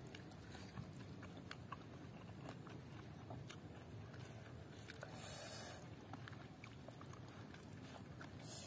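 Quiet mouth sounds of someone eating seblak with chicken feet: soft chewing with scattered small clicks, and a short hiss about five seconds in.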